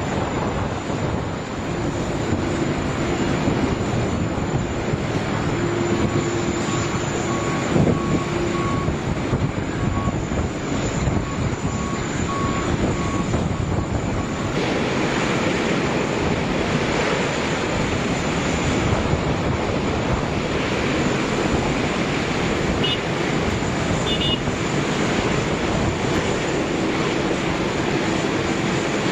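Jet airliner engines running, a steady loud rushing noise with a faint whine, which brightens and gets hissier about halfway through.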